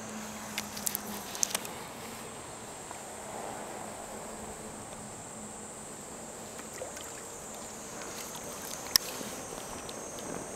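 Steady outdoor lake ambience: a faint high-pitched insect buzz over soft water sounds, with a few small clicks or splashes in the first couple of seconds and one sharp click about nine seconds in.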